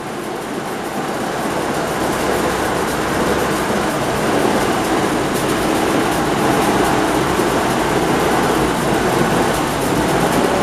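Homebuilt straight-16 (inline sixteen-cylinder) engine idling steadily at about 500 RPM, a dense even run of rapid firing; it grows louder over the first few seconds, then holds.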